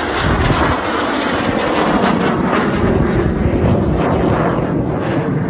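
Fixed-wing aircraft flying past overhead: loud, steady engine noise.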